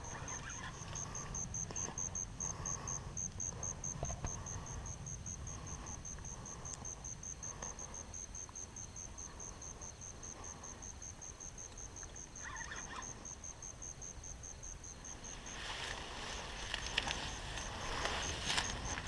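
An insect chirping steadily and rapidly, about three chirps a second, over a low wind rumble. From about three-quarters of the way in, louder rustling and scuffing in tall grass with sharp clicks takes over.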